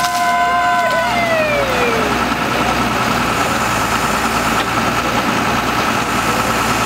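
Truck-mounted Fassi hydraulic loader crane and the truck's engine running while the grapple is moved. A high whine holds steady, then slides down in pitch and fades out about a second or two in. A steady engine and hydraulic running sound continues after it.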